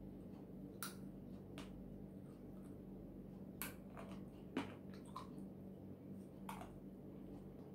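Quiet eating sounds: a handful of short mouth clicks and smacks while chewing, the sharpest about three and a half and four and a half seconds in, over a steady low appliance hum.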